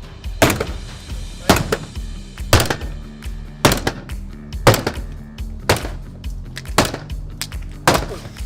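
Sledgehammer blows against a GRP foam-filled composite door, about one a second, each a sharp crack with a brief ringing tail, over background music.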